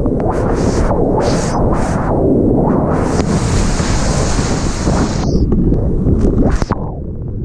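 Loud rushing of river whitewater, heavy and muffled with buffeting on the microphone, with repeated bursts of splashing spray.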